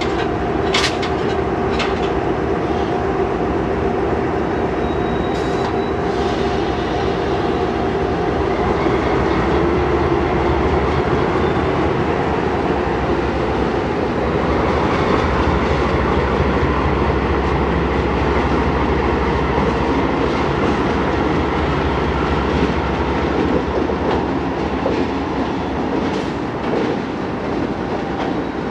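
A pair of GE B23-7 diesel locomotives, each with a twelve-cylinder FDL engine, running as they roll slowly past. A few sharp clicks sound in the first seconds, and the low engine rumble grows stronger about halfway through.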